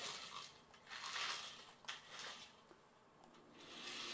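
Toy radio-controlled mini truck's small electric motor and gears whirring as it drives circles, swelling and fading. There is a short click about two seconds in, then a brief lull before the whir builds again near the end.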